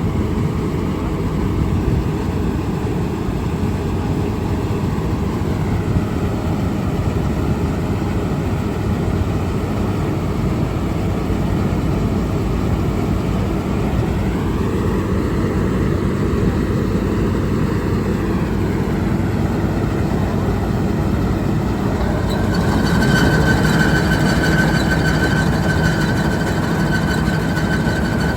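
Panesar G-60 mini combine harvester running, its diesel engine a steady low drone with a fainter whine that slides up and down in pitch. About three quarters of the way through, a louder steady high whine joins in.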